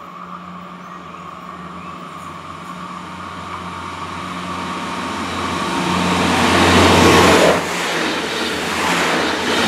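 Alstom Coradia LINT 81 diesel multiple unit approaching and passing close by: a steady low diesel engine hum with wheel and rail noise that builds, peaks as the front end goes past about seven seconds in, then carries on as the carriages roll by.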